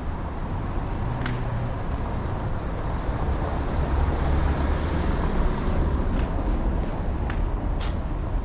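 Street traffic: a steady low rumble of passing vehicles that swells about halfway through, with a few short clicks.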